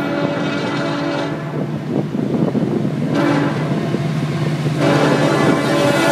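Florida East Coast Railway diesel locomotive's multi-chime air horn sounding for a grade crossing: a long blast of over a second, a short blast near the middle, then another long blast starting near the end. Under it runs the steady rumble of the approaching diesel locomotives.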